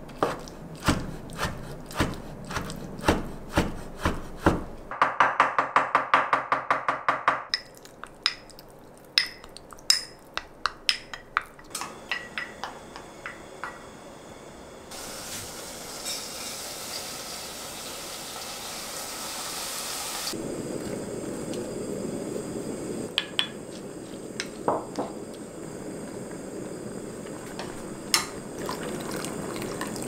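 A kitchen knife chops abalone innards on a wooden cutting board, in steady strokes that speed into a fast run of mincing and then slow to scattered taps. About halfway through, soaked rice is tipped from a sieve into an enamelled cast-iron pot with a short hiss. Then comes a steady lower sizzle as the rice fries in the pot, with a few clicks of the utensil.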